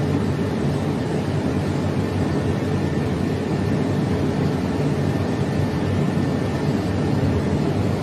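Steady low roar of violent storm wind.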